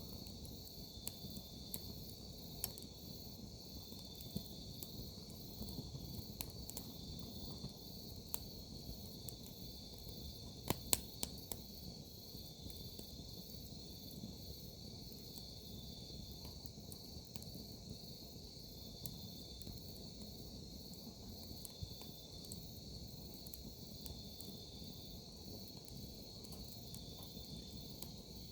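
Crickets calling in a steady, pulsing high chorus, over scattered crackles and pops from a wood campfire, with a cluster of louder pops about eleven seconds in.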